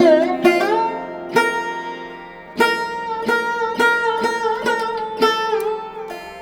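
Live Pakistani classical music: sharply struck notes that slide in pitch, one every half second to a second or so, over a steady held drone.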